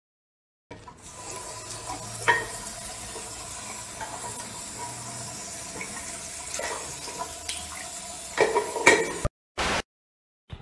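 An old cross-handle sink tap being forced with a wrench: scattered metal clanks and scrapes over a steady hiss, the loudest cluster coming near the end. A short burst of noise follows just before the end.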